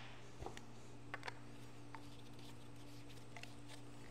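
Faint clicks and taps of white plastic PVC pipe fittings being handled and screwed together, a few in the first two seconds and a couple of weaker ones near the end, over a low steady hum.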